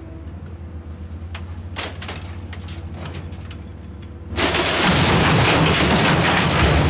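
A steady low engine hum with scattered clicks. About four seconds in, a loud, sudden, continuous crashing and crunching of metal begins: a cast-iron Linotype typesetting machine being smashed apart for scrap.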